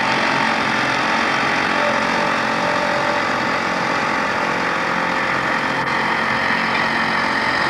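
Boat motor running steadily at a constant speed, with a faint click about six seconds in.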